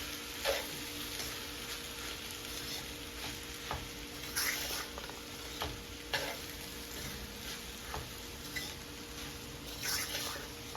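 Brown rice with vegetables frying in a pan, a steady sizzle, with the spatula scraping and stirring through it every second or so.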